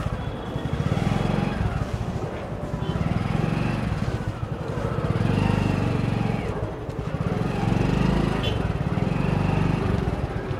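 Motorcycle engine running at low speed, its low pulsing note swelling and easing several times as the throttle is opened and closed. Faint voices of people nearby underneath.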